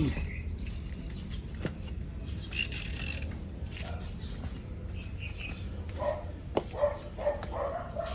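A dog barking in a run of short calls near the end, over scattered light clicks and knocks.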